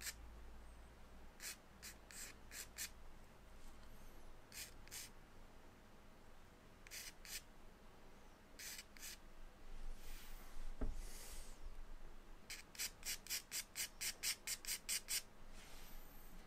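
Charcoal stick scratching on drawing paper in short strokes, in small groups, then a quicker run of about four strokes a second near the end. A soft bump about two-thirds of the way through.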